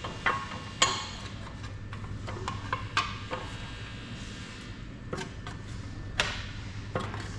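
Hand-hammer blows on a sheet-metal repair panel: a string of irregular taps with three louder strikes, each ringing briefly. The blows knock a spot of the panel's turned flange flat so it can be stretched again.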